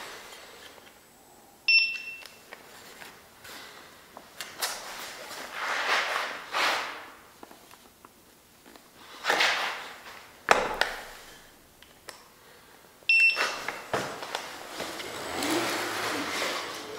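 Two short electronic beeps from a Begode MTEN4 electric unicycle as it is lifted and handled, about eleven seconds apart. Between them are handling and shuffling noises and one sharp knock about ten seconds in.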